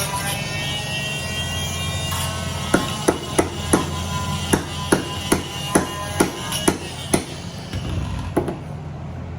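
A tool knocking sharply on the bus's metal roof, about a dozen quick strikes at two or three a second, as cracking paint is chipped away from around the rivets, over a steady low hum.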